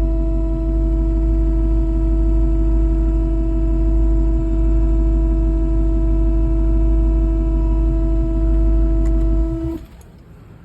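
Loud, steady droning tone with a low rumble underneath from a 2017 Dodge Charger SRT Hellcat: the unexplained loud noise whose cause the owner is asking about. It cuts off suddenly near the end, leaving a faint hum.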